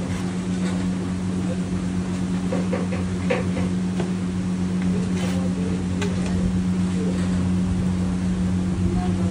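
Steady machine hum, with a few faint clinks and clatters.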